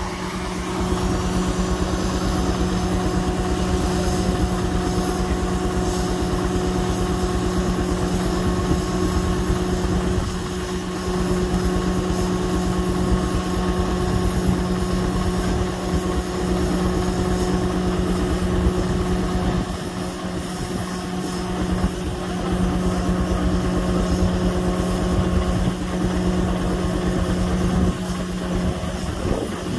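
George White steam traction engine running under steam, belted to a Waterous sawmill. The machinery makes a steady mechanical hum over a fast chopping beat, easing off briefly twice, about ten and twenty seconds in.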